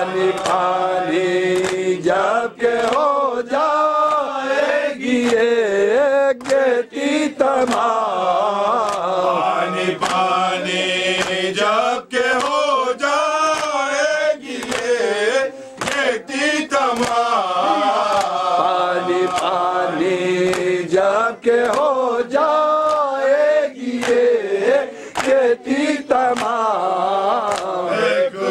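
A Muharram noha (Urdu lamentation) chanted by a lead male reciter, with a group of men singing along. Through it runs a recurring beat of chest-beating slaps (matam).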